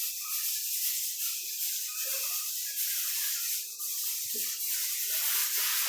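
A steady hiss like running water, with a faint low hum under it; the hiss stops abruptly just after the end.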